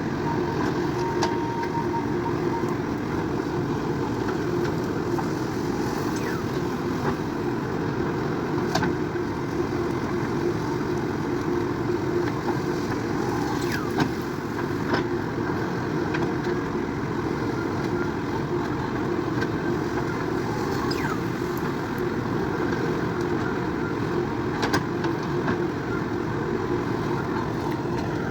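JCB 3DX backhoe loader's diesel engine running steadily while working, with a constant hum and a few light clicks and clanks scattered through.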